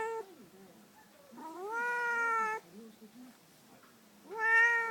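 Domestic cat meowing: two drawn-out meows, each rising in pitch and then held for about a second, one about a second and a half in and another near the end, after the tail of an earlier meow at the very start.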